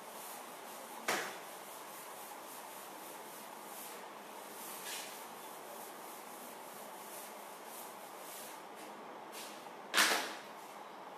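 A chalkboard being wiped clean with a duster: soft, repeated rubbing strokes. A sharp knock comes about a second in, and a louder thump near the end.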